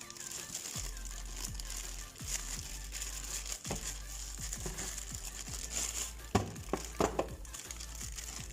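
Packaging crinkling and rustling as it is handled over background music with a steady bass line, with a few sharp knocks about six to seven seconds in.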